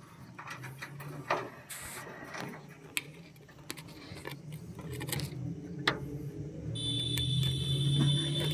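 Scattered sharp taps and rubbing as a hand handles a wooden nest box inside a wire cage, then a steady high-pitched tone sets in about seven seconds in and holds, louder than the taps.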